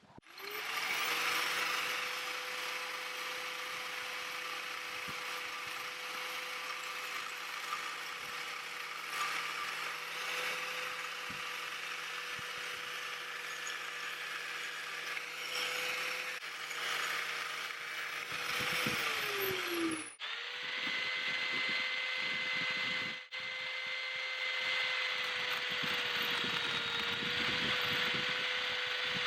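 Angle grinder running at a steady high whine with a rough grinding hiss from working the steel axe head. About 19 seconds in it winds down, and after a short break it runs steadily again.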